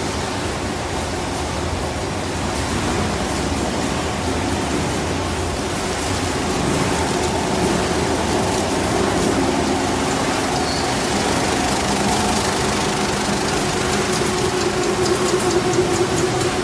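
Kettle-chip frying line running, with its conveyors carrying and dropping chips: a loud, steady machinery noise with a low hum. A light rattle comes in near the end.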